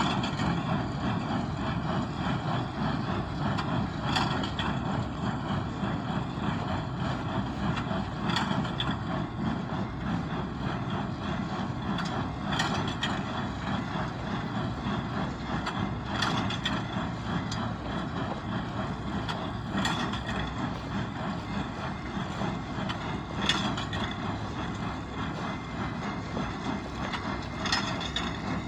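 A Massey Ferguson 1840 small square baler working behind a tractor: a steady run of engine and machine clatter, with a sharper clack about every four seconds.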